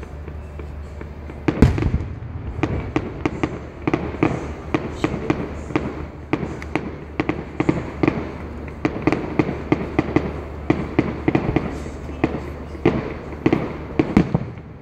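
Fireworks going off: one loud bang about a second and a half in, then a dense run of sharp cracks and pops, several a second, for the rest of the stretch.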